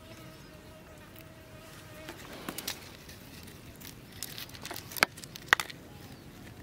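An insect buzzing in a faint, steady hum for about two seconds. Then a few sharp clicks and knocks as fishing gear is handled, the loudest two about half a second apart near the end.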